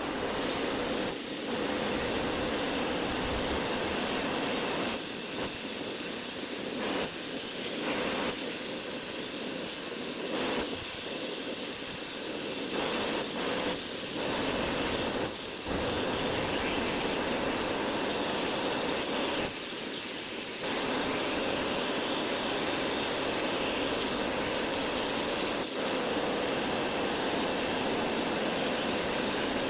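Pressure washer jet spraying a house wall to strip dirt and peeling paint: a loud, steady hiss that wavers now and then in the middle range.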